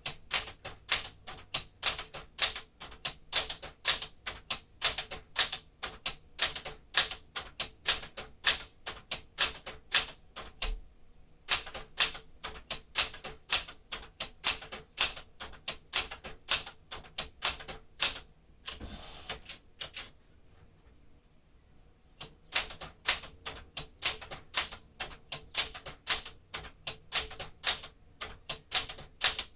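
1973 Smith-Corona Sterling manual typewriter being typed, about three sharp keystrokes a second. The typing pauses briefly, and about two-thirds of the way through there is a one-second sliding rattle, the carriage being returned, before the typing starts again.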